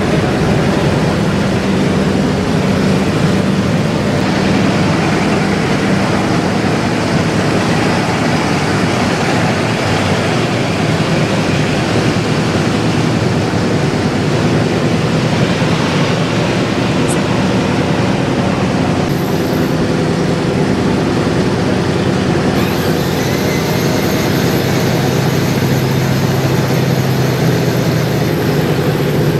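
Wright Continental R975 C4 nine-cylinder radial engine of an M4A1 Sherman tank running loudly and steadily, just after startup.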